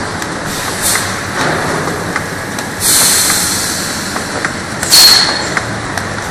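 Oil-bottle labeling machine running: a steady mechanical whir with scattered clicks as bottles move along the conveyor and through the guides. Two loud bursts of hissing air cut in, one lasting about a second from about three seconds in and a shorter, louder one about five seconds in.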